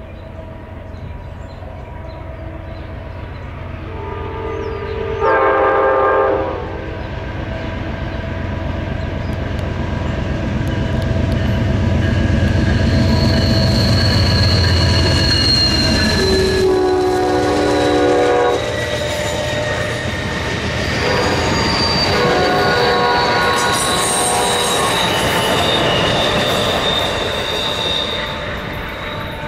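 Amtrak GE P42DC Genesis diesel locomotive hauling Superliner bilevel cars past at speed: the engine's rumble builds to a peak about halfway through. Its air horn sounds a chord about four seconds in, again around sixteen seconds, and more faintly from about twenty-one seconds. A high wheel squeal on the curve comes in about halfway and runs on as the cars pass.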